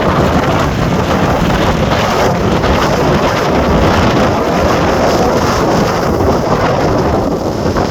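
Strong wind buffeting the microphone while wingfoiling: a loud, steady, rumbling noise.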